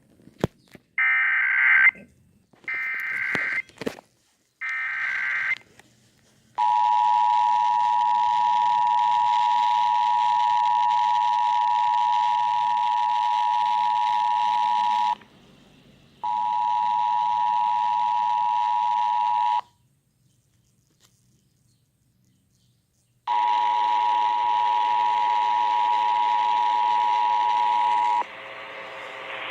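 Emergency Alert System required monthly test tones. It opens with three short bursts of the SAME digital header data, then the steady two-tone attention signal, which drops out briefly about fifteen seconds in and for a few seconds around twenty seconds in before sounding again.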